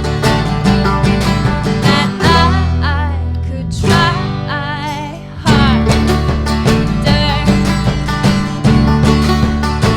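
Live band song: acoustic guitar strumming with sung vocals. The accompaniment thins out from about three seconds in under a held, wavering vocal note, then the full band comes back in at about five and a half seconds.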